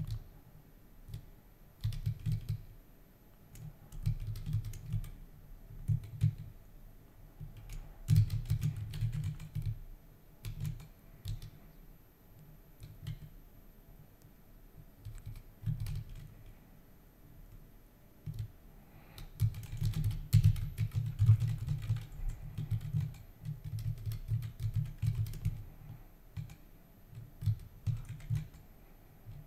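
Typing on a computer keyboard in irregular bursts of key clicks, with short pauses between them.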